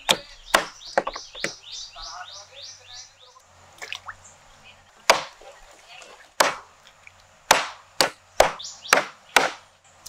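Large knife chopping a seer fish into steaks on a wooden cutting board: about ten sharp strikes, spaced out at first and coming about two a second near the end.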